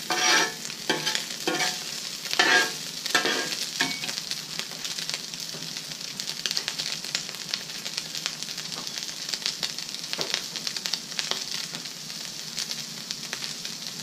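Crumbled smoked breakfast sausage sizzling on the steel top of a portable Blackstone griddle. In the first few seconds a metal spatula scrapes several times across the plate, pushing the meat together. After that there is a steady crackling sizzle.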